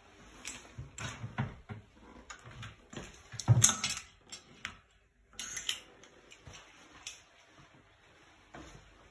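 Handling noise from a handheld phone recording: irregular rustles, scrapes and light knocks as it is moved around, loudest about three and a half seconds in.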